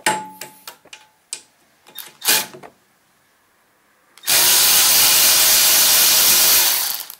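A few clicks and knocks of metal tools, then a power drill spins a socket on an extension steadily for nearly three seconds, backing out a bolt from the shield plate on a Briggs & Stratton snow blower engine.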